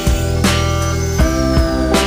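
Background music led by guitar over a steady beat.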